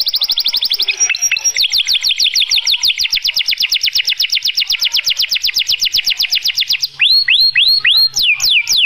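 White canary singing: a long, rapid trill of quickly repeated notes, then, about seven seconds in, a louder run of slower whistled notes that each slide downward. This is a male canary's breeding song.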